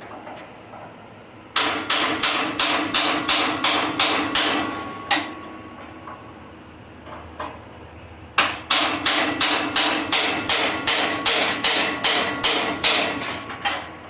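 Hammer blows on steel, with a metallic ring. There is a quick run of about a dozen strikes at roughly three a second, a pause of a few seconds, then a longer run of about sixteen more.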